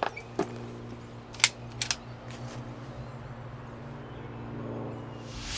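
A few short, light clicks of the air rifle being handled as the shooter settles onto it, over a steady low hum. Near the end a whoosh swells up as a transition sound effect.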